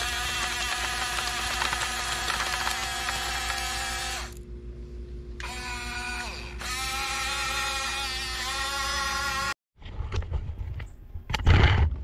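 Geared electric track motors of a Huina 1569 RC bulldozer whining as it drives and pushes mulch, starting and stopping twice with slight changes in pitch. After a break near ten seconds come irregular knocks and a loud thump near the end.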